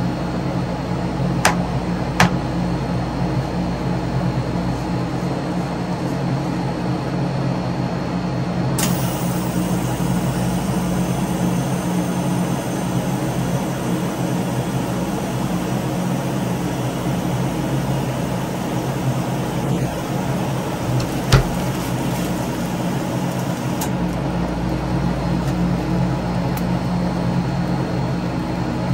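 Steady electric hum, plausibly from the refrigeration unit under a rolled-ice-cream cold plate, with three short sharp taps: two close together about a second and a half in, and one about twenty-one seconds in.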